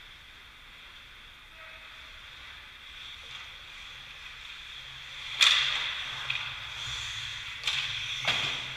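Ice hockey play close to the boards: a loud sharp crack of stick and puck about five and a half seconds in, and two more hits near the end, over a steady hiss of skates and rink noise.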